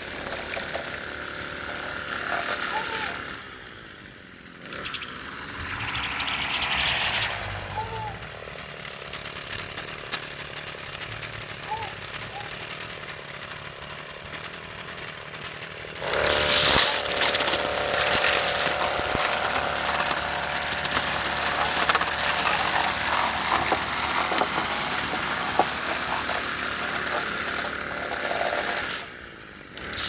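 Petrol string trimmer running and cutting grass, its engine note rising and falling with the throttle. It eases off briefly about four seconds in and again near the end, and is loudest from about halfway through as it comes close.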